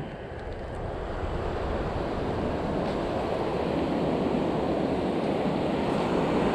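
Ocean surf washing onto the beach, a steady rushing that builds slowly, with some wind on the microphone.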